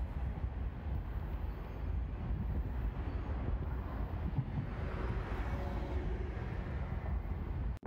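Wind buffeting the microphone, with a low, steady rumble from a distant freight train. The sound cuts off abruptly just before the end.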